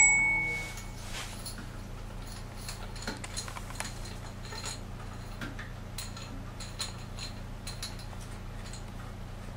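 A sharp clink that rings briefly right at the start, then faint, scattered clicks and taps of a plastic hose nut and fittings being handled and threaded by hand onto a toilet tank's water inlet, over a steady low hum.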